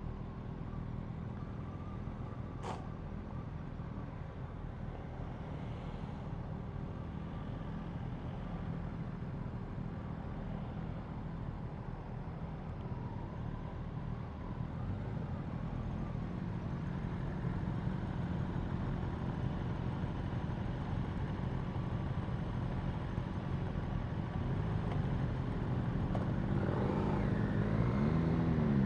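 Motorcycle engine running at low revs while the bike moves slowly, then revving up and easing off near the end. A single sharp click about three seconds in.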